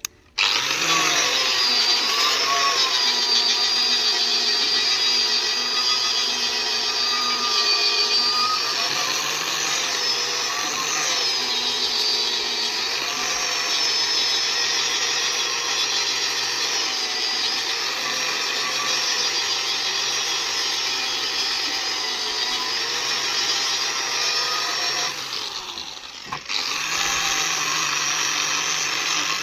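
Handheld electric power tool running continuously with a high, wavering whine. It drops out briefly near the end, then runs again.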